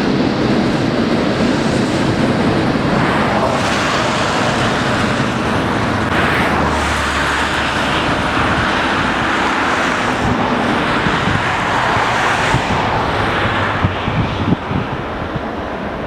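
Jet airliner engines on a low final approach, a loud steady rush of engine noise that swells several times as the aircraft passes.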